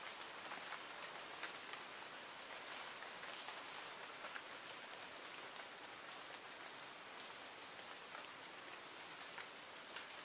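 Hermit hummingbird singing: series of very high, thin squeaky notes, a short pair about a second in and then a quick run of notes in short phrases from about two and a half to five seconds. A faint steady high-pitched tone runs underneath.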